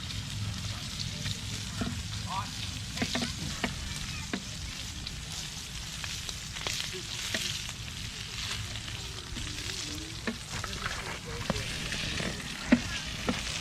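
Food sizzling in a frying pan, with scattered sharp clicks and scrapes of a utensil stirring it.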